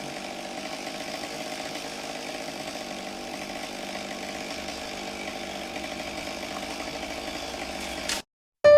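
Chainsaw engine running steadily at a constant pitch, then cut off abruptly near the end, with piano music beginning right at the end.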